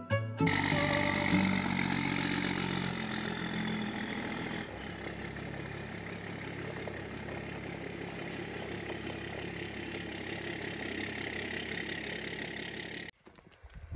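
Pickup truck engine running as the truck pulls away, louder for the first four or five seconds and then settling to a steadier, quieter drone until it cuts off near the end.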